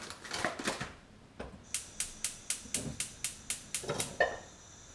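Kitchen knife chopping on a wooden cutting board: about ten quick, even strokes at roughly four a second, then a single louder knock near the end.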